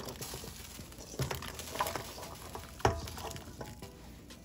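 Chopped carrot and beet pieces tipped into a saucepan of boiling water: irregular splashes and knocks against the pot over the steady bubbling. A sharp knock with a brief ring comes about three seconds in.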